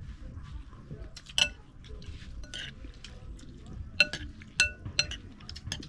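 Dishes and cutlery clinking: a few sharp, ringing clinks, the loudest about a second and a half in and then three more between four and five seconds in, over a low background murmur.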